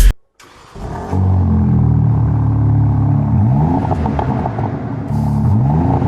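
2021 BMW M3's twin-turbo straight-six engine running under steady load, its note rising briefly twice as the revs climb. The engine note starts about a second in.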